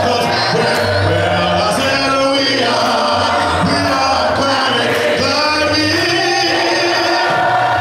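A man's voice leading a gospel song into a microphone, with a congregation singing along unaccompanied, in the a cappella style of a Church of Christ.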